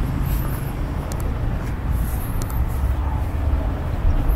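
Outdoor street ambience: a steady low rumble, with faint high chirps and a few light ticks over it.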